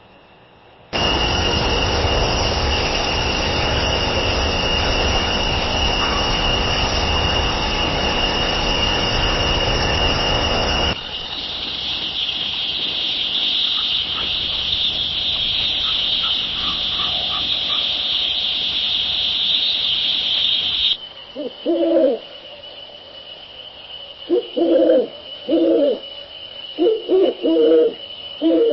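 Owl hoots from separate night recordings cut one after another. First comes about ten seconds of loud, even noise with a steady high whine. Then a quieter hiss with a few faint hoots. Then an owl hooting loudly and repeatedly in short hoots, some in quick pairs.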